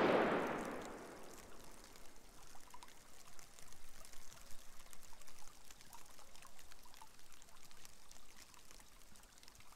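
Shallow water trickling and splashing along a concrete drainage channel, a faint steady flow with small scattered drips. Right at the start a sudden loud rush cuts in and fades away over about a second and a half.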